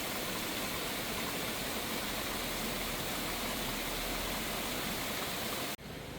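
Steady rush of water pouring down a small grist mill's sluice and running in the stream. It breaks off suddenly near the end, leaving a quieter hiss.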